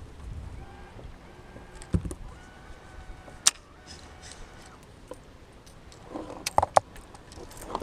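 Scattered knocks and sharp clicks of fishing gear and a caught bass being handled on a kayak while the fish is laid out to be measured. There is one sharp click a few seconds in and a cluster of louder knocks near the end.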